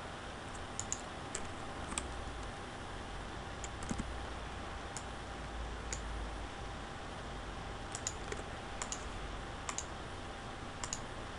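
Scattered clicks of a computer mouse and keyboard, several coming in quick pairs, over a steady background hiss.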